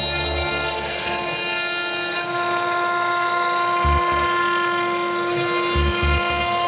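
CNC router spindle whining at a steady pitch with a row of overtones while a ball-nose bit carves MDF, with a few short low thuds past the middle.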